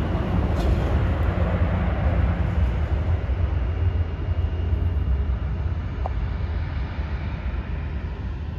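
Jet airliner engine noise, a loud, steady rumble that slowly fades, hard to place and seeming to come from behind.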